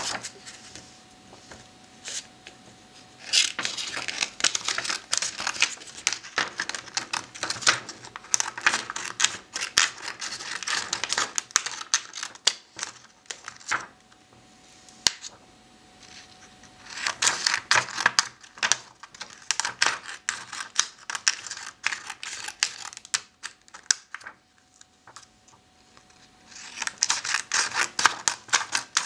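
Scissors cutting through printed photo paper: runs of quick snips and rasping paper noise in three spells of several seconds each, with pauses between.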